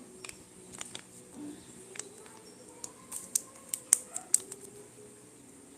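Small hard parts and packaging being handled on a tabletop: a scatter of light clicks and taps, coming thickest about three to four and a half seconds in.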